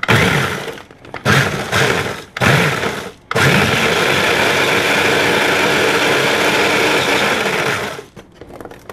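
Small electric food processor grinding salt and vinegar potato chips toward a powder. It is pulsed three times in short bursts, then run steadily for about five seconds before stopping near the end.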